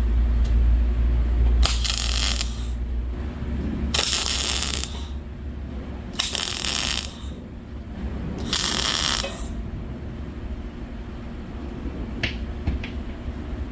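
Four short bursts of electric arc welding, each about a second long and crackling, as the sweet-potato box is tack-welded onto a steel wood stove. A steady low hum runs under the first few seconds.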